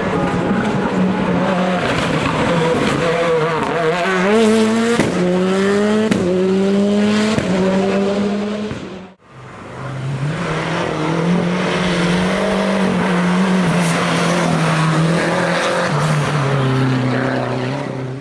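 Race car engines at full throttle, revving up and dropping in pitch at each quick upshift, with tyre squeal in places. About halfway through, the sound cuts off abruptly and another car's engine takes over, running at high revs with a few shifts.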